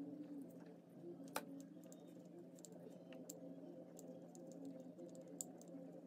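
Faint small irregular clicks and crackles of a soldering iron reflowing solder joints on wire leads, with one sharper click about a second and a half in, over a low steady hum.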